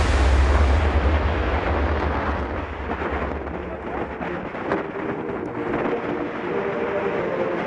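Wind buffeting the microphone of a bike-mounted action camera as the racing bicycle rides at speed: a loud, deep rumbling rush that is strongest for the first three seconds and then eases off.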